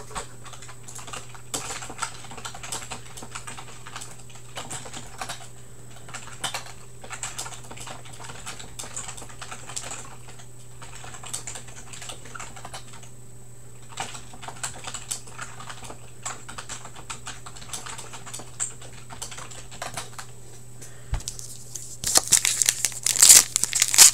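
Typing on a computer keyboard: irregular keystroke clicks over a low steady hum. About two seconds before the end, a louder crinkling of card packs and wrappers begins as cards are handled.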